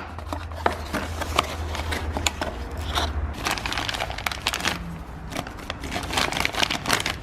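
Packaging crinkling with irregular small clicks and scrapes as the die-cast front axle nut covers are unpacked and handled.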